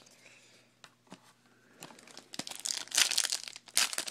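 Wrapper of a Topps Tribute baseball card pack crinkling and tearing as it is ripped open by hand, starting about two seconds in after a few soft clicks.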